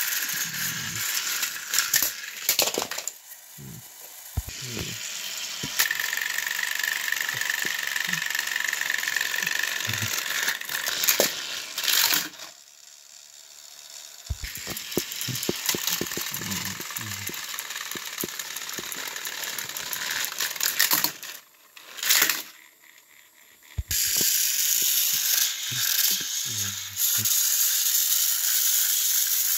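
Battery-powered toy train motors whirring and rattling on plastic track, with sharp clicks and clatter from wheels and plastic parts. Two engines push against each other under load. A steady high motor whine holds for a few seconds early on, and the running sound drops away three times.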